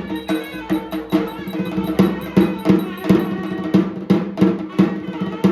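Traditional folk music with a fast, steady drum beat, about three strokes a second, over held melodic notes.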